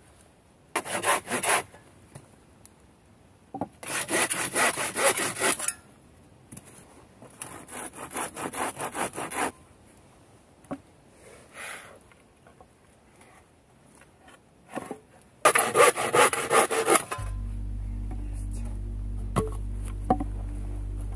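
Hand saw cutting through wooden boards in four short bouts of rapid strokes, with pauses between them. Background music with a steady low tone comes in near the end.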